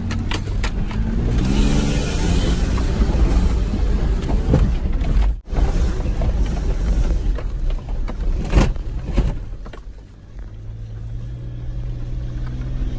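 Toyota Land Cruiser's engine, heard from inside the cab, working hard as the truck climbs a steep hill of dirt and leaves. The engine revs up about a second in, under a rumble with knocks and thumps from the truck crawling over rough ground. Near the end it settles to a steadier, quieter running on level ground.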